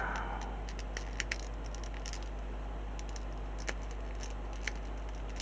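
Small plastic model-kit parts clicking and tapping as they are handled and pressed into place: a few light clicks, a pair about a second in and single ones later, over a steady low hum.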